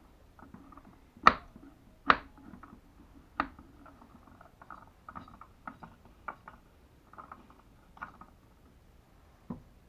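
Metal parts of a dismantled electric hoist motor being handled: scattered sharp clicks and light knocks, the three loudest about a second, two seconds and three and a half seconds in, with faint scraping between.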